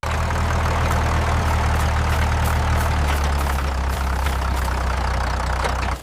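A motor engine idling steadily with a low rumble, starting abruptly and cutting off suddenly about six seconds in.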